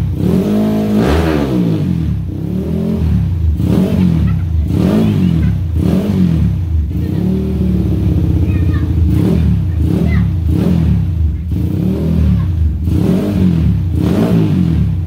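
Suzuki Satria F150 single-cylinder four-stroke engine, bored up to 200cc, revved through a freshly fitted aftermarket racing exhaust. It runs as a series of quick throttle blips, about one a second, each rising and falling in pitch, with the engine idling between them.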